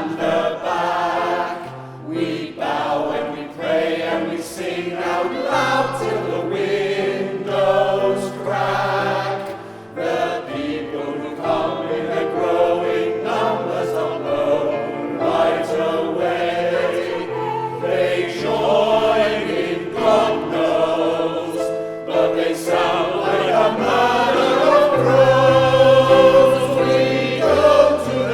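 Choir singing a show tune with instrumental accompaniment.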